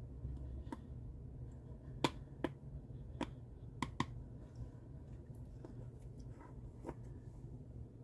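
Scattered light clicks and taps of kitchen utensils against a mixing bowl while flour is measured in, about eight in all, the sharpest around two and four seconds in.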